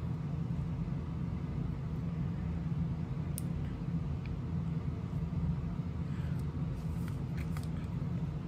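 A steady low hum fills the room, with a few faint light clicks as resin drills are picked up with a drill pen and pressed onto a diamond-painting coaster, most of them in the second half.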